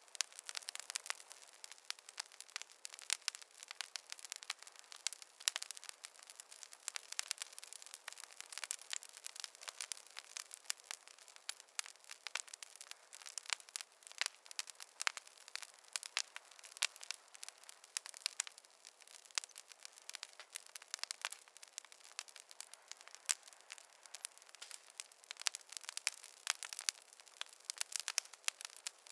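Campfire crackling: burning wood giving off dense, irregular pops and snaps.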